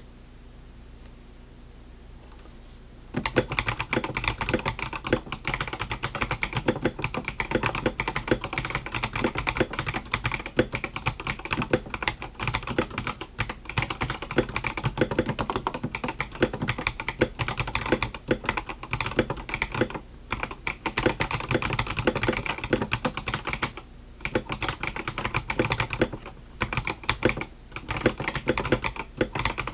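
Typing on a HyperX Alloy Rise mechanical keyboard with its stock switches: a fast, continuous clatter of keystrokes that starts about three seconds in, with a few short pauses later on.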